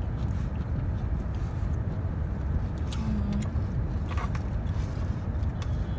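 Steady low rumble of a car cabin, with a few sharp clicks and crackles from handling food and its packaging, and a short low hum about three seconds in.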